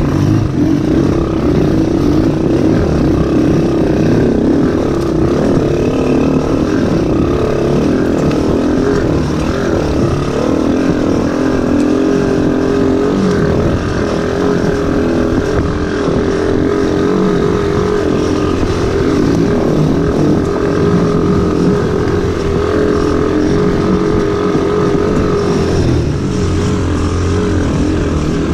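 Small ATV engines running steadily at riding speed, the nearest one being the following quad that carries the microphone.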